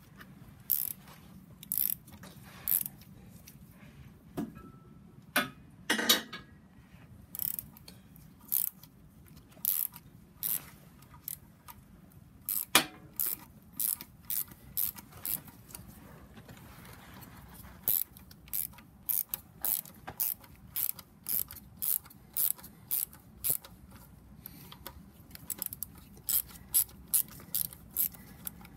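Hand ratchet wrench clicking as it is worked back and forth to undo an external Torx bolt. The clicks come irregularly at first, then settle into a steadier run of about two a second in the second half.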